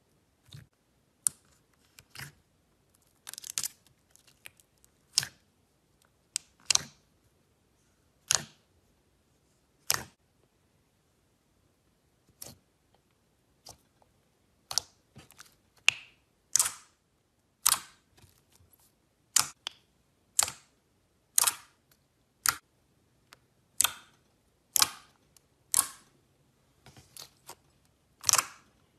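Thick, glossy slime being poked, squeezed and kneaded by hand, giving sharp wet pops and clicks at irregular intervals, roughly one a second, as air trapped in the slime bursts.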